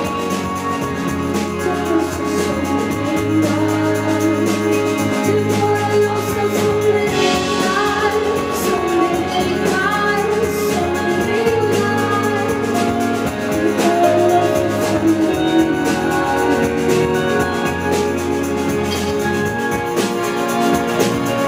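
Live pop band playing, with a woman singing lead into a microphone over drums and keyboards. Steady and full throughout, heard from the audience.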